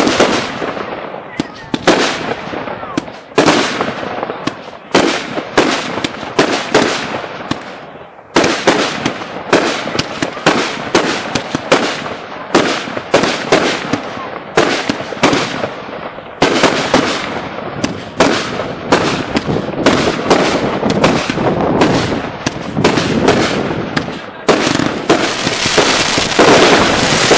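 Consumer firework cakes firing shot after shot of aerial bursts, at times several a second, with crackling. Near the end the shots merge into a dense, continuous crackle.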